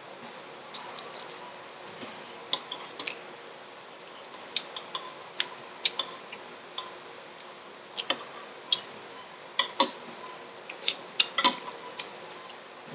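Irregular light clicks and small clinks from handling a balut egg and tableware during eating, some leaving a brief ringing tone.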